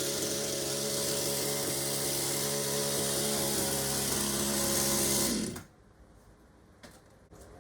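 Two-stroke Partner chainsaw running at a steady speed after a new spark plug, then cutting off suddenly about five and a half seconds in, followed by a couple of faint clicks. It runs properly again, the broken spark plug fixed.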